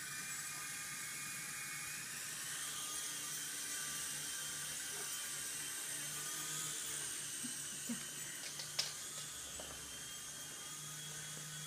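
Traxxas DR-1 coaxial RC helicopter's small electric rotor motors whining steadily at high pitch, the pitch drifting slightly. A couple of sharp knocks come near the end.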